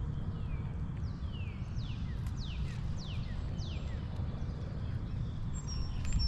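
Wind rumbling on the microphone, with a bird's string of high whistled calls, each sliding downward, from about one to nearly four seconds in.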